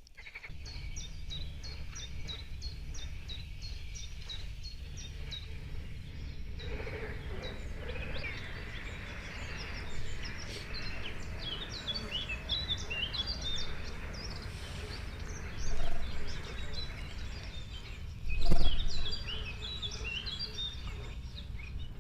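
Several small birds chirping and singing over a steady low rumble, with a louder knock near the end.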